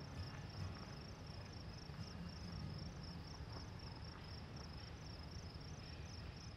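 Field insects chirping steadily in a high, even pulse of about five chirps a second, over faint low background noise.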